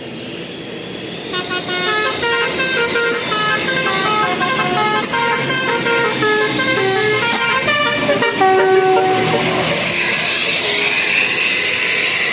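A bus's Basuri multi-tone telolet horn playing a quick melody of short, stepped notes for about seven seconds, ending on a longer held note. Then a loud, steady rushing engine noise as the bus goes by.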